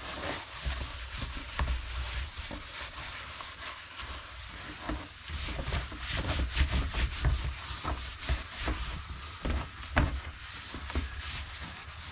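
Cleaning a surface in the car's rear shelf area by hand: a rag or brush rubbing and scrubbing in quick, irregular strokes, with a few light knocks.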